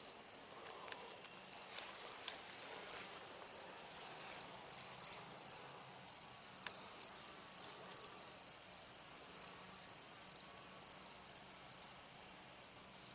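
Crickets chirping: short, high chirps repeating about three times a second over a steady, high insect trill.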